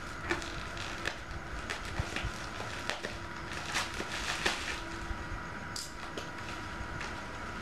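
Irregular rustling and light clicks of handling as a ball-jointed doll is turned in the hands and its white covering is pulled off, over a faint steady hum.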